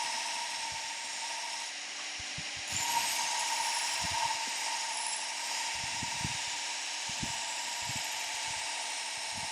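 RadiusMaster belt grinder running with steel being rough-ground against the belt over its rubberized drive wheel: a steady hissing grind over a constant machine whine, a little louder from about three seconds in.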